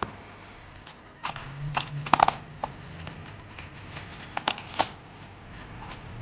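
Irregular light clicks and taps from small parts and tools being handled during a wall clock repair. The loudest cluster comes about two seconds in, and another group of taps comes about a second later.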